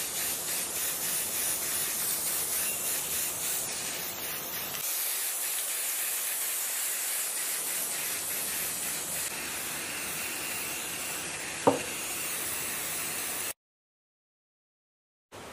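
Aerosol spray-paint can hissing steadily as paint is sprayed onto engine parts, with one sharp click near the end. The hiss stops abruptly about two seconds before the end.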